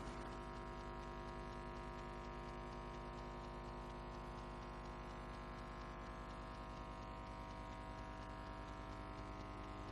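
Faint, steady electrical mains hum and buzz, a set of unchanging tones with nothing else over it.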